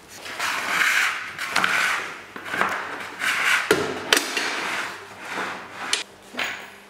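Stainless-steel sausage stuffer being closed and worked: several short bursts of metal scraping and rubbing, with a few sharp clicks and knocks from about the middle on.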